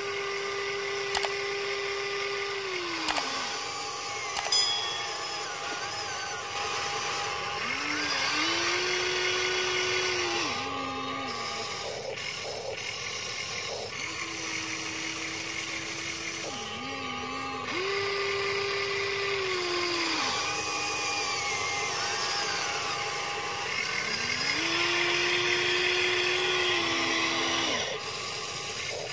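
Huina 1593 remote-control excavator's electric motors whining as it digs soil. The pitch glides up to a steady whine and falls away again about five times as the arm and bucket start and stop, with a few sharp clicks in the first seconds.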